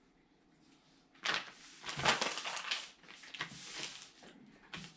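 Rustling and clattering as packaging and parts are handled, in several bursts starting about a second in, the loudest a little after two seconds.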